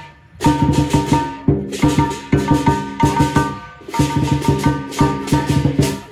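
Lion dance percussion band: drum, gong and cymbals struck in rapid strokes with a ringing metallic sound, played in short phrases broken by brief pauses.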